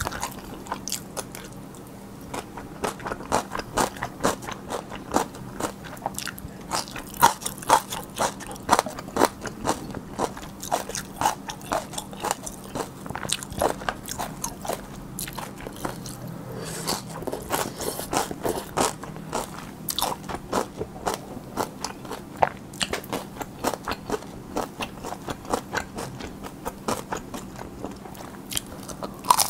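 Close-miked chewing of spicy cold noodles with whelk, young radish kimchi and cucumber: a dense run of wet mouth clicks and light crunches, several a second.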